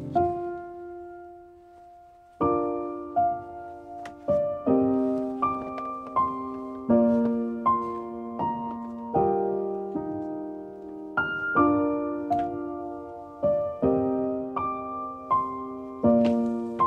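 Background piano music: a soft held note, then a gentle, steady run of notes and chords from about two seconds in.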